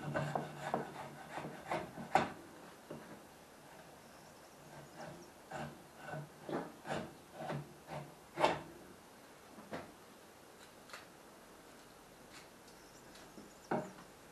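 Homemade wooden hand plane being pushed in short strokes along a board held in a vise, shaving wood on a trial run. The strokes come in two runs, a few seconds of quiet, then a couple more near the end.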